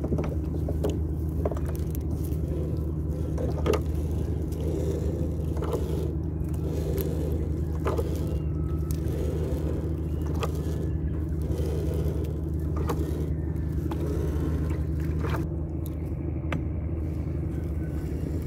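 Boat engine running steadily with a low hum, with scattered light clicks and scrapes from a gill net being handled.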